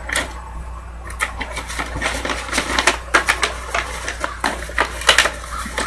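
Paper envelope and trading cards being handled, a run of short crisp rustles, crackles and taps over a steady low hum.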